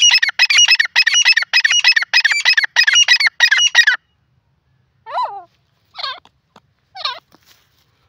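Grey francolin calling: a loud, fast series of harsh repeated notes, about two or three a second, that stops about four seconds in. It is followed by three single shorter calls about a second apart.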